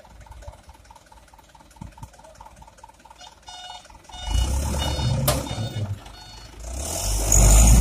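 Hino Dutro dump truck's reversing beeper sounding in rapid repeated beeps, then about four seconds in its diesel engine revs hard twice as the truck tries to move with its rear wheels sunk in loose fill soil, the second rev the loudest.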